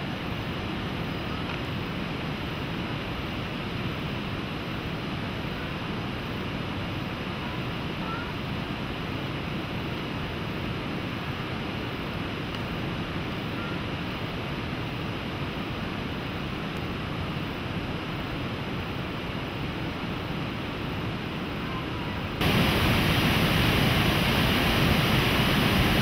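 Steady rush of a distant waterfall. About 22 seconds in it changes abruptly to the louder, brighter rush of a white-water mountain stream over boulders.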